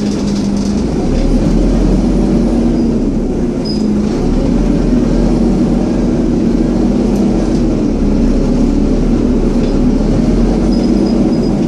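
Scania N230UD double-decker bus's engine and cooling fan running, a loud steady drone with a low hum and a few faint high squeaks.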